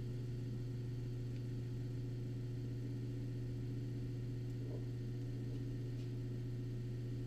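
A steady low hum runs throughout, with a few faint clicks as the air hose fitting and the grinder are handled.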